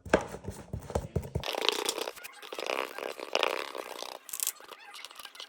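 Painting a plastic box by hand: a run of small knocks and clicks, then about two and a half seconds of scraping and wet, squelching noise as paint is squeezed out and spread.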